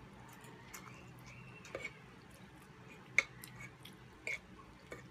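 Close-up eating sounds: pancit canton noodles being chewed and slurped, with a few sharp clicks from forks on the wooden board, the loudest about three seconds in.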